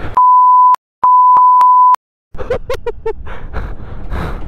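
Edited-in censor bleep: a pure, steady beep tone near 1 kHz that replaces the soundtrack twice in the first two seconds, one short and one longer, with dead silence between and after.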